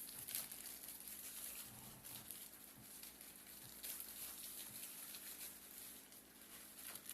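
Faint scattered rustling and light taps over a steady low hum.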